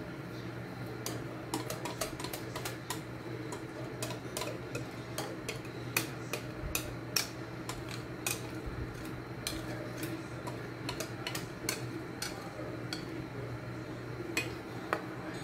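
Thick cake batter poured from a blender jar into an aluminium baking pan: many irregular light clicks and ticks over a steady low hum.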